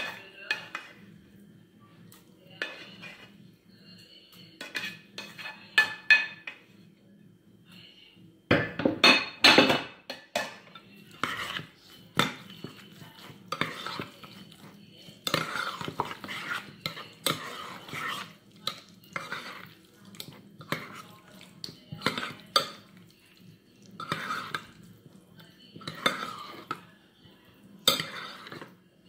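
Scattered taps and scrapes of a spatula on a stainless steel pan. From about eight seconds in, a metal spoon stirs shredded carrot and zucchini through a thick dressing in a glass mixing bowl, clinking and scraping against the glass in quick, repeated strokes.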